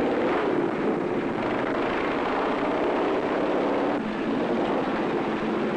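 Large motorcycle's engine running steadily as it rides at speed.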